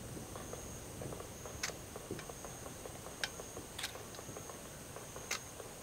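Quiet outdoor ambience in a gap between distant firework reports: a steady high-pitched tone over a faint low rumble, with about five faint, sharp clicks and no firework boom.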